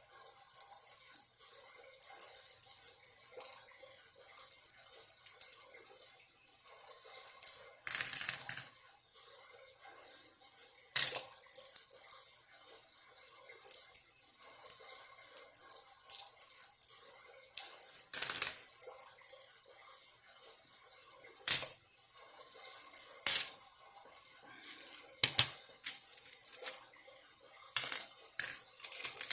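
Loose coins being handled and sorted: irregular metallic clicks and clinks as coins are set down and knock together, with louder jingling clusters about eight and eighteen seconds in, where handfuls of coins slide together.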